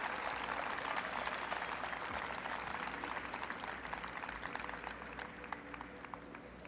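Arena audience applauding, the clapping thinning out and dying away toward the end.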